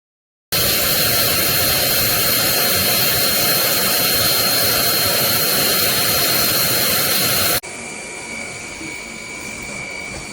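Dreame Z20 vacuum motor running with a steady high whine and airflow rush. About seven seconds in it cuts abruptly to a quieter run with a lower whine.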